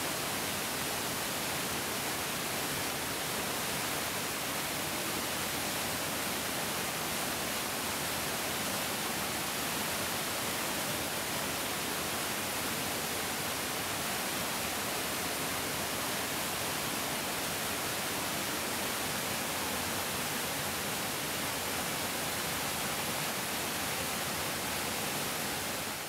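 Mountain stream rushing steadily: an even, unbroken wash of flowing water.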